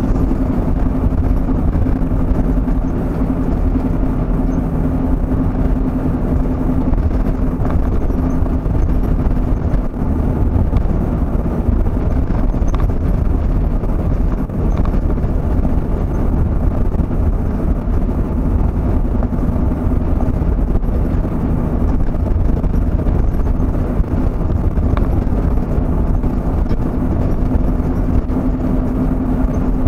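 Road and engine noise of a vehicle being driven, heard from inside: a steady low rumble with a constant hum over it.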